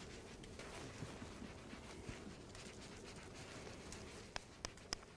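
Faint scrubbing of a soapy forearm with a surgical scrub brush's sponge side, then, a little over four seconds in, a run of sharp clicks about three a second.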